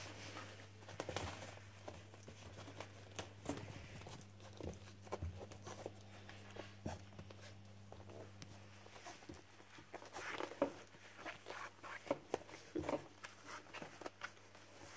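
Four-week-old puppies moving about on crinkly puppy training pads: scattered soft crinkles, scratches and clicks, busier about ten seconds in, over a steady low hum.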